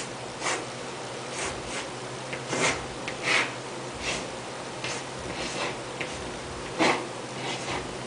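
Chalk scratching on a blackboard in about a dozen short, irregular strokes as lines are drawn, over a low steady hum.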